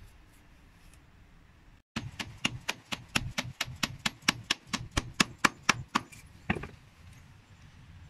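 Hatchet being knocked repeatedly: a rapid, even run of sharp knocks, about five a second, starting about two seconds in and stopping near six and a half seconds.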